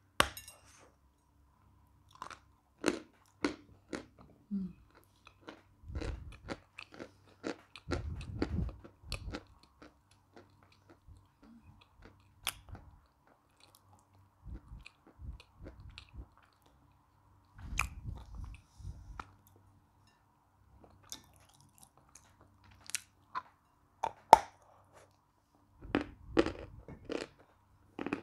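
Close-miked biting and crunching of a chunk of Uslada edible chalk: sharp crisp snaps as pieces break off, then gritty chewing, in irregular clusters with short pauses between.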